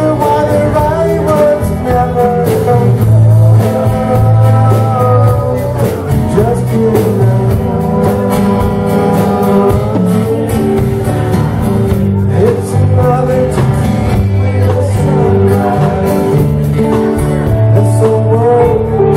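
Live band playing a country-rock song with acoustic and electric guitars, bass and drums.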